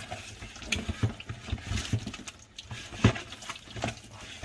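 Hands kneading and rubbing a whole raw rock octopus in flour inside a plastic colander, giving irregular wet squelches and slaps, a little louder about three seconds in; the flour scrub cleans the slime from the suckers and body.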